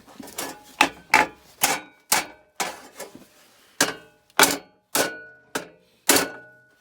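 Hammer blows on metal: about ten separate strikes at an uneven pace, several leaving a short metallic ring.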